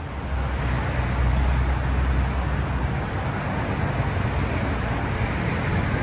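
Street traffic: a motor vehicle's engine giving a low, steady rumble over general road noise, growing louder just after the start.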